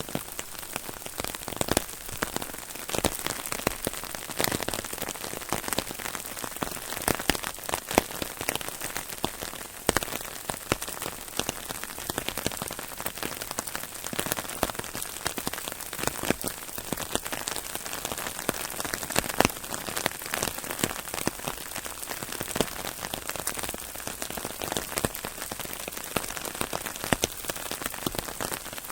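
Shower of rain falling on an umbrella: a steady hiss of rain with frequent sharp drop hits on the canopy.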